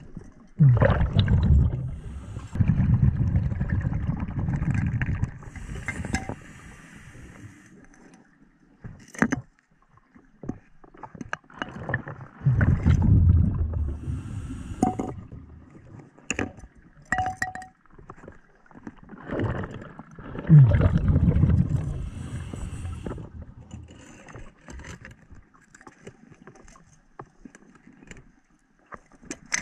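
Underwater sound of a scuba diver: exhaled bubbles from the regulator rumble out in three long bursts several seconds apart, with scattered sharp clicks and knocks between them.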